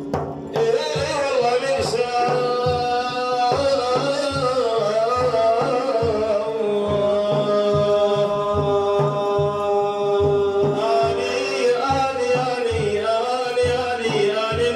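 A man's voice sings a long, drawn-out melodic line of Sufi devotional chant, bending and held on the vowels, over a steady hand-drum beat.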